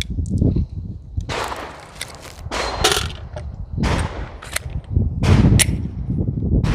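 Pistol gunshots at a shooting range: about seven or eight sharp cracks, irregularly spaced a half second to a second and a half apart, over a low rumble.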